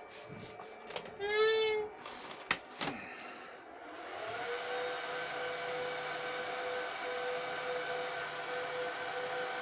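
HP ProLiant DL360p Gen8 server powering on: a few clicks and a short, loud tone, then about four seconds in its cooling fans spin up and run fast with a steady whine.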